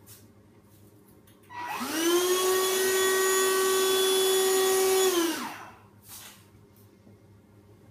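Cordless stick vacuum cleaner switched on about a second and a half in: the motor spins up to a steady whine with a rush of air, runs for about three seconds, then is switched off and winds down.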